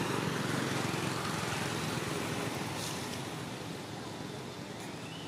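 Noise of a passing vehicle, slowly fading away.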